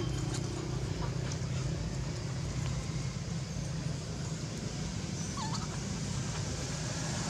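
Steady low hum with a faint, short rising squeak from a young pig-tailed macaque about five seconds in.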